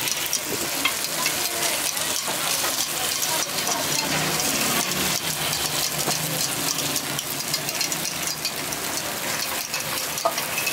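Takoyaki batter frying in the wells of a hot takoyaki griddle, a dense, steady sizzle and crackle.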